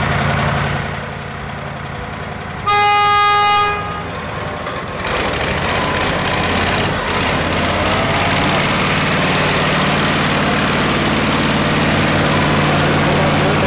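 Ant railcar-moving tractor sounds one short horn toot, about a second long, a few seconds in; then its engine runs steadily louder as it sets off hauling a railcar.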